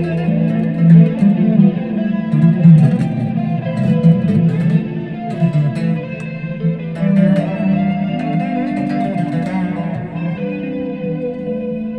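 Dean Avalanche C7 electric guitar played through a Line 6 Spider Jam amp, a continuous passage of changing notes and chords with effects on the amp.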